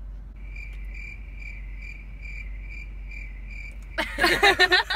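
Cricket-chirp sound effect, the stock gag for an awkward silence: a steady high chirp pulsing a little over twice a second, which starts and stops abruptly. Loud laughter breaks in about four seconds in.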